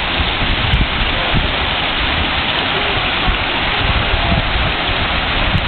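Water fountains of a children's water play structure splashing steadily: a curtain of water pouring from the rim of a mushroom fountain onto the wet surface below, with spraying jets.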